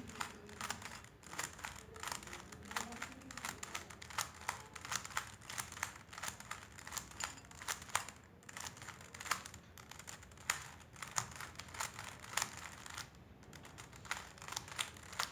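A 3x3 Rubik's cube being turned in the hands, its plastic layers clicking and clacking in quick, uneven strokes a few times a second. The same two turns, left face anti-clockwise and top face clockwise, are repeated over and over to bring the cube back to solved.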